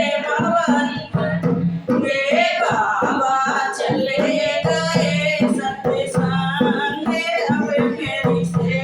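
Hindi devotional song (bhajan) sung with musical accompaniment, the voice in long, bending melodic phrases.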